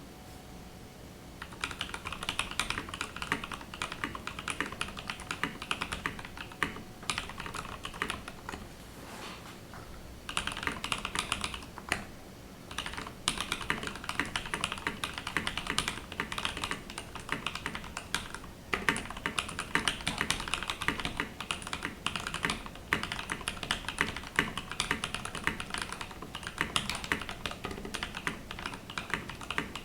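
Fast typing on a Graystudio Space65 Voyager mechanical keyboard with lubed NovelKeys Cream linear switches and PBT keycaps: a dense stream of key presses that starts about a second and a half in, with a couple of short breaks around the middle.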